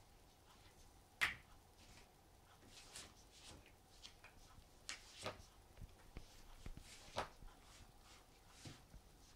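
Faint scattered knocks and scuffs of a rubber clog slipper being pawed and dragged on a wooden floor by a kitten. The sharpest knock comes about a second in, with more around five and seven seconds in.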